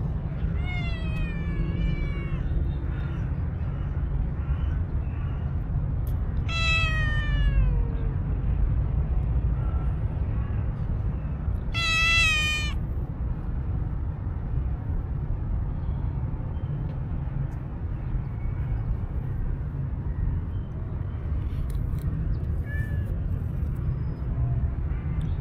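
Cats meowing in drawn-out, falling calls: a few near the start, a long one about seven seconds in, and the loudest about twelve seconds in from the black-and-white tuxedo cat, in an angry-sounding voice. A steady low rumble runs underneath.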